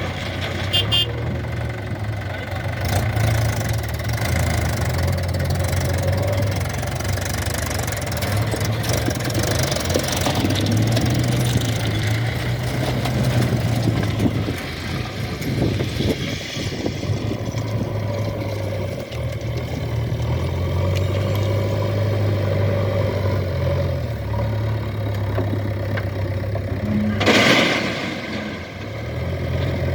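Diesel engines of a JCB 3DX backhoe loader and tractors running steadily, the engine note stepping up and down as the machine works. A short, loud rushing burst comes near the end.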